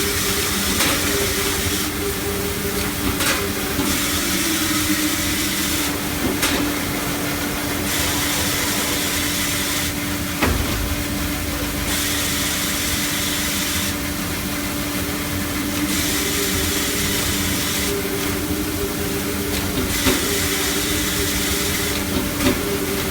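Automatic band saw cutting machine for maxi toilet paper rolls running: a steady motor hum with a held tone, under a high hiss that swells and drops every few seconds. A single sharp knock comes about ten seconds in.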